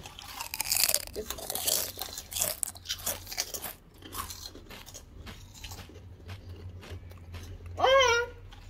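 Child biting and crunching crisp snack chips: rapid loud crunches over the first four seconds, then softer chewing.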